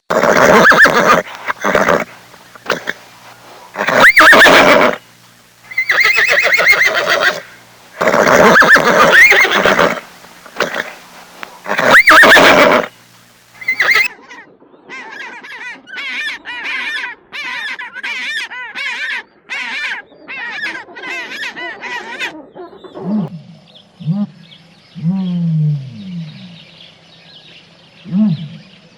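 A horse neighing: a series of loud, harsh whinnies about a second long each over the first half. These are followed by a run of rapid, short high calls and, near the end, a few lower, falling calls from another animal.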